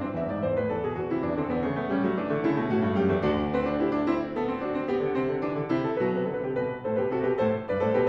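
Grand piano played solo: fast, dense runs of rapid notes through the middle and upper range, with low bass notes coming in about three seconds in.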